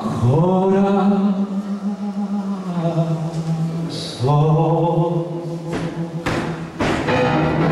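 Live tango music: a male singer holds two long notes with vibrato over piano, then the band plays three sharp accented hits near the end and comes back in fully.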